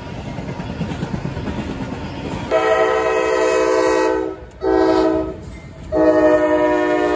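A freight train rolling past, wheels on rail, then a CSX diesel locomotive's air horn sounds three times about two and a half seconds in: a long blast, a short one, then another long one.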